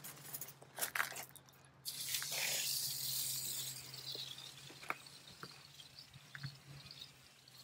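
Water hissing from a garden hose spray wand onto potted plants: the spray comes in about two seconds in and fades away over the next few seconds. A few light handling clicks come just before it.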